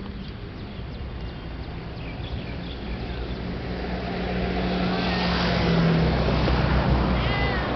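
A car engine running nearby with a steady low hum, growing louder from about halfway through as it comes closer. A few faint short chirps sound above it.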